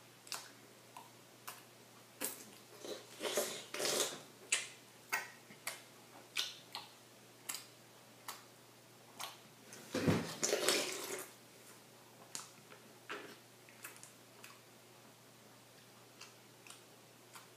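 Close-up wet chewing and mouth smacks from someone eating a Coke-soaked flour tortilla: irregular clicks and squelches, with a longer, louder burst about ten seconds in.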